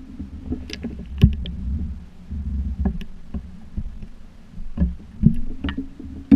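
Water sloshing against a GoPro dome housing bobbing at the waterline, with a low rumble and scattered small splashes and knocks on the housing. The sharpest knocks come about a second in and again near the end.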